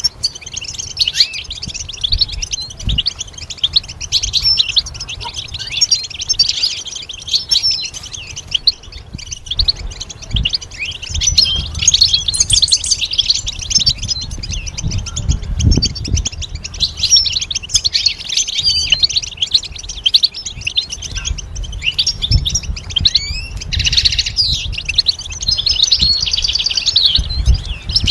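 European goldfinch singing: a long, continuous run of rapid twittering, chirping notes, with short lulls about nine and twenty seconds in.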